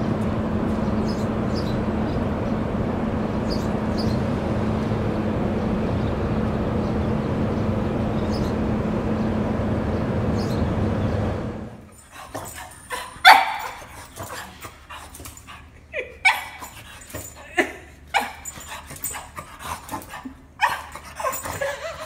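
A steady rushing noise for roughly the first half, then a small dog giving short, sharp yips and barks, one every second or two, the loudest about a second after the noise stops.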